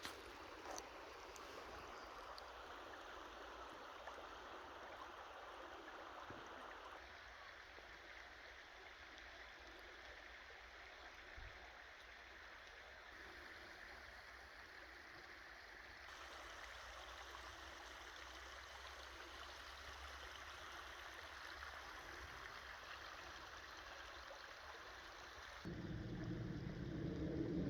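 Steady rushing of running water, like a stream, with no distinct events. Near the end it changes abruptly to a louder, lower sound.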